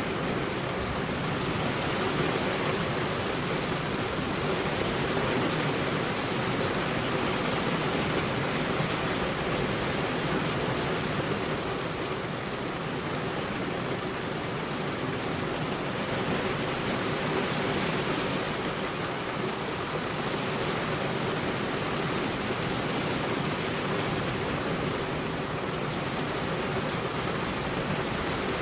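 Heavy rain falling steadily on a road: a dense, even hiss with no thunder.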